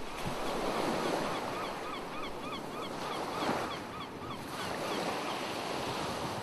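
Surf washing in, the noise swelling and easing in slow surges, with a bird calling over it in a fast run of short repeated chirps.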